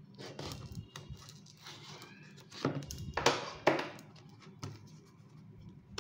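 Plastic shrink-wrap on a cardboard earbuds box crinkling and tearing as hands work it off, with several short rasps, the loudest about two and a half to four seconds in.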